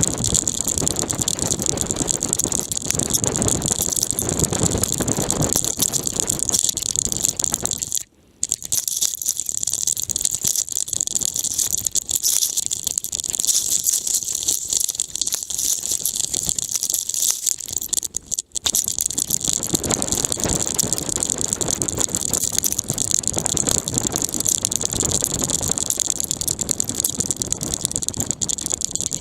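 A GoPro camera strapped to a dog's harness, rattling and jostling continuously as the dog moves, with the sound cutting out briefly twice.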